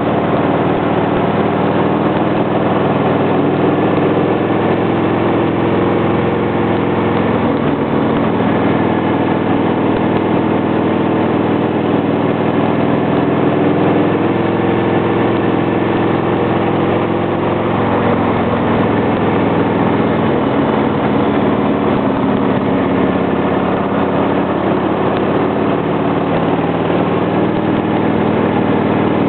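Motorcycle engine running steadily under way, its note shifting down and back up a few times as the throttle changes through the curves.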